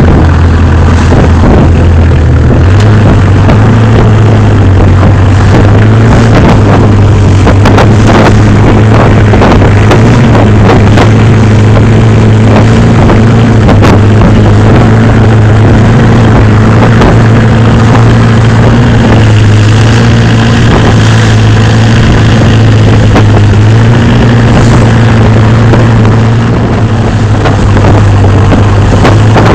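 Wooden Thai fishing boat's engine running loud and steady under way, its pitch stepping up about two and a half seconds in as it speeds up, with water splashing past the hull.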